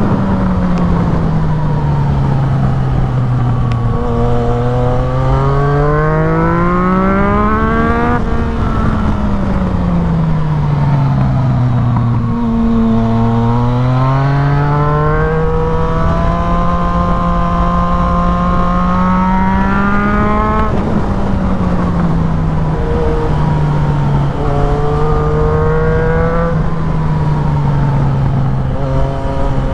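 2016 Yamaha MT-09's three-cylinder engine through a full Black Widow aftermarket exhaust, heard from the rider's seat, revving up and dropping back over and over as the bike accelerates and slows. It holds a steady pitch for a few seconds in the middle, and wind rushes past the helmet camera throughout.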